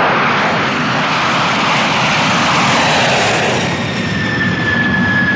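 Jet aircraft flying by: a loud, rushing jet-engine roar, with a steady high whine coming in about four seconds in and falling slightly in pitch.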